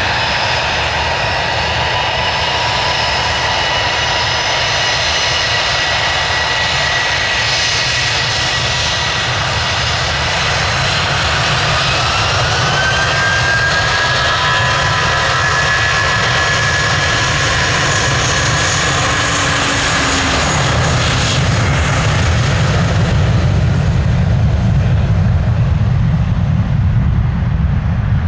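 Airbus A320's twin IAE V2500 turbofan engines running at takeoff power through the takeoff roll. A whining tone rises in pitch about halfway through as the jet passes, and a deeper rumble builds over the last third as the exhaust turns toward the listener.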